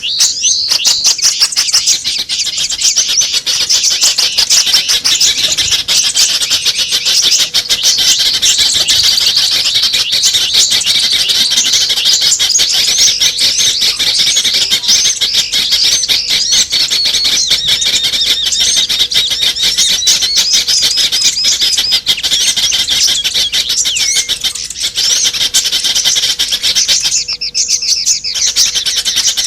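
Small birds' calls played as a bird-lure (pikat) recording: a dense, continuous mix of rapid high chirps and twitters from several birds overlapping.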